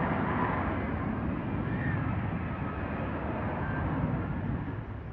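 Aircraft engine running as a steady, noisy drone, heard in amateur footage.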